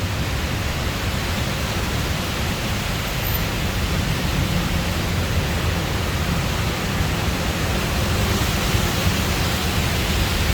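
Heavy monsoon rain pouring steadily, heard from under a covered walkway, with a low rumble beneath the hiss; it grows a little louder near the end.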